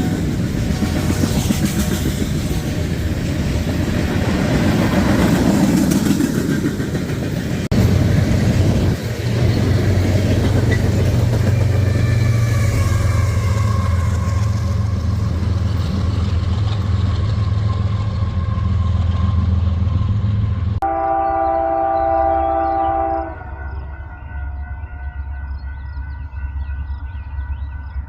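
A long freight train rolling past with wheels clattering on the rails. From about eight seconds in, a locomotive diesel engine's steady low drone joins it as the train's rear distributed-power locomotive goes by. After an abrupt cut about three-quarters of the way in, an approaching locomotive sounds its air horn: one long chord, then fainter, then again at the end.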